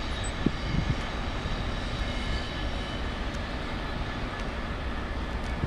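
Diesel locomotives of a Class 37 hauling four Class 20s running as the train pulls away: a steady low engine drone with a faint high whine over it. A couple of soft thumps come within the first second.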